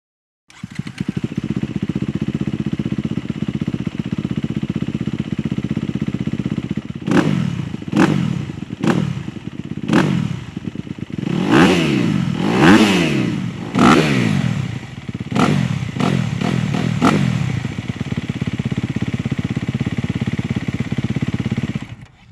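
Honda CRF250R's single-cylinder four-stroke engine idling through its exhaust, then blipped about ten times in quick succession, each rev rising and falling back, before settling to a steady idle again.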